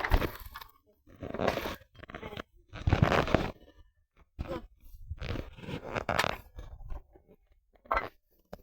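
Dry twigs and bark crunching and rustling in about half a dozen short bursts with brief pauses between them.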